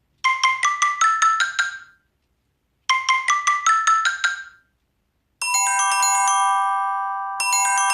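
Samsung Galaxy S6 edge+ ringtones: a quick rising run of about eight marimba-like notes, played twice, then, about five and a half seconds in, a different bell-like chime chord that rings on and is struck again two seconds later.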